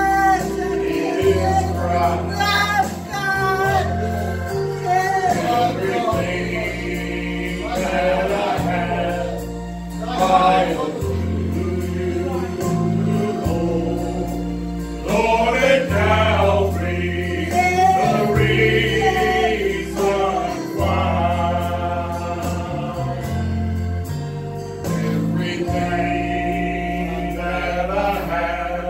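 Gospel song sung by a choir or congregation with a male voice, over instrumental accompaniment with a bass line that changes note every second or two.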